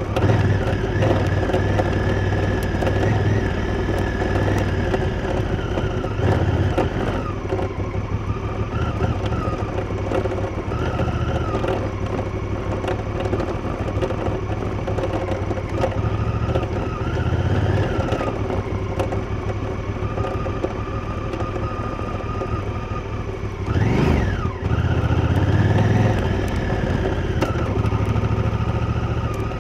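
Honda Africa Twin's parallel-twin engine running as the motorcycle is ridden, its revs rising and falling repeatedly. About 24 seconds in there is a quick, sharp rise and fall in revs.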